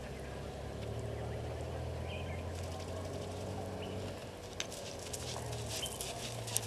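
An African elephant walking over dry ground, its steps crunching and crackling on dry leaves and twigs. The crackles come irregularly from about two-thirds of the way in, over a steady low hum.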